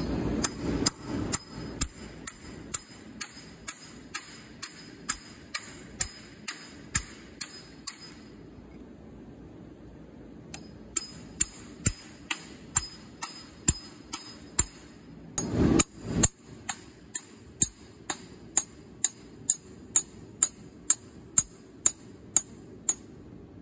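Hammer blows on a steel punch driving the main shaft of an Allis-Chalmers WD tractor transmission rearward out of its case: sharp, ringing metal taps at about one and a half a second. The tapping stops for about three seconds a third of the way in, and there is a duller thump about two-thirds through.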